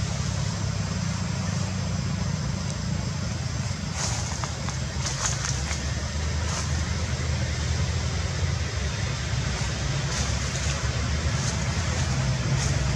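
Steady low engine-like rumble, with a few short, faint high-pitched ticks scattered through.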